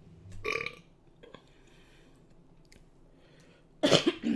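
A woman burping after eating: a short burp about half a second in and a louder one near the end.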